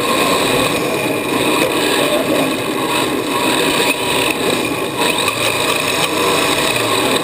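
Radio-controlled drift car heard from a camera mounted on the car: a steady motor and drivetrain whine over tyre and chassis noise as it drifts on the smooth floor.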